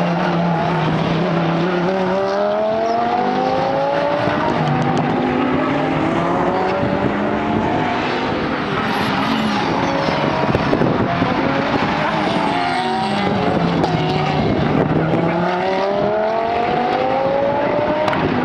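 GT race cars running at speed past the track edge, several engines overlapping. Their engine notes drop and then climb again in pitch twice as cars brake and accelerate through the gears.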